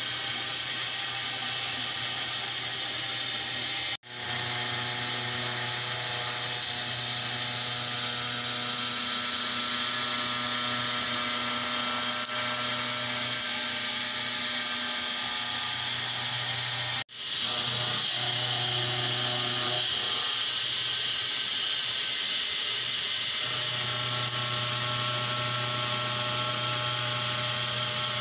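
Milling machine spindle with an end mill cutting 2017 aluminium billet: a steady machining drone with a high hiss and several steady whining tones. It drops out abruptly twice, about 4 and 17 seconds in.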